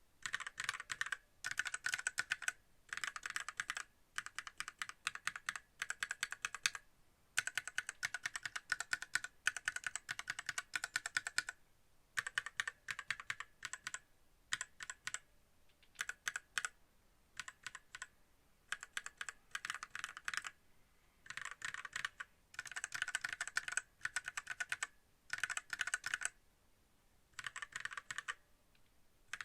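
Keys of a WENRUI WR63 mechanical keyboard with red linear switches being pressed in quick runs of clacks, each run a second or a few seconds long, broken by short pauses.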